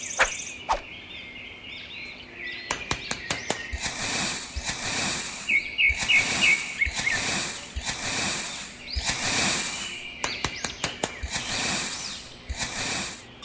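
A trowel scraping and spreading fine sand in repeated strokes, about one a second, with small gritty clicks. Birds chirp in the background.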